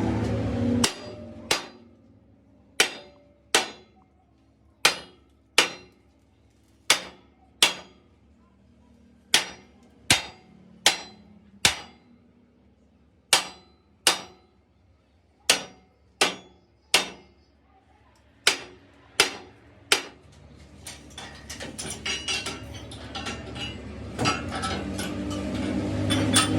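Hammer striking steel: about twenty sharp, ringing blows, mostly in pairs, spaced roughly a second apart. After them comes a busier, denser metallic clatter that grows louder near the end.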